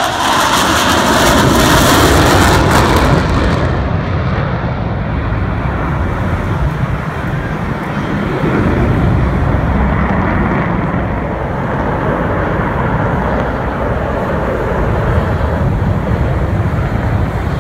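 Four Blue Angels F/A-18 Hornet jets flying over in diamond formation with a loud jet roar. About four seconds in, the high, hissing part of the roar falls away and a deep rumble carries on as the jets move off into the distance.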